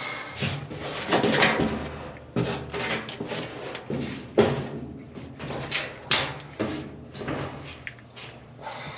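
Metal dryer parts and panels being handled and fitted: an irregular run of knocks, clanks and scrapes, with one sharp bang about four and a half seconds in.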